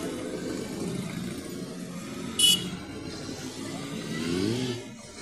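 A stream of motorcycles riding past, engines running. About two and a half seconds in there is a brief, loud, high-pitched beep. Near the end one bike's engine revs up, its pitch rising as it accelerates away.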